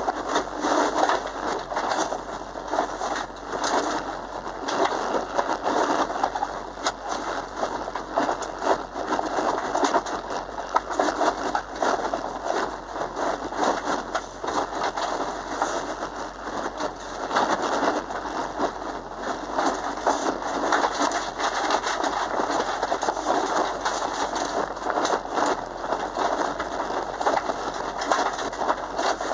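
Inside the cabin of a Subaru Impreza driven flat out on a dirt autocross course: a loud, dense crackling rush of engine and loose mud and stones pelting the car's underside and bodywork, with no clear engine note standing out.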